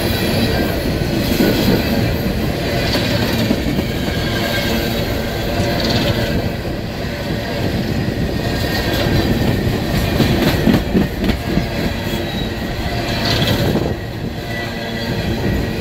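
CSX freight train's open-top freight cars rolling past at close range: a steady rumble of steel wheels on rail, with clacks over rail joints. Two brief higher-pitched wheel squeals come about six seconds in and again near the end.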